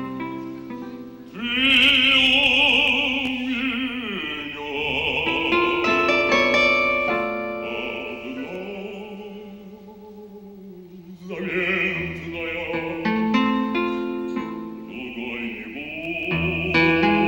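A man singing solo with wide vibrato on long held notes, over an instrumental accompaniment of quick, short notes. Midway the voice stops for a few seconds while the accompaniment plays on softly, then the singing returns.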